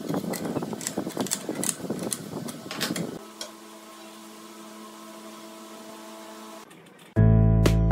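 Light knocks and clicks of a steel brake-disc axe being handled and set down on a rubber mat, then a steady low machine hum. Acoustic guitar music starts near the end.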